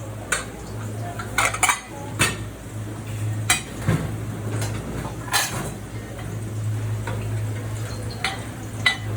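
Dishes, pots and metal utensils clattering in a restaurant kitchen: irregular sharp clinks and clatters over a steady low hum.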